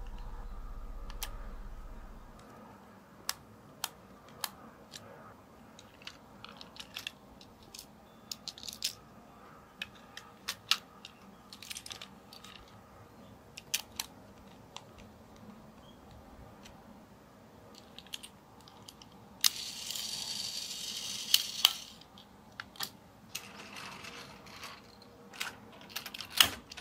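Plastic Plarail toy train cars being handled: scattered light clicks and taps, a scraping rustle of about two seconds roughly two-thirds of the way through, and a quick cluster of clicks near the end as two cars' hooks are coupled.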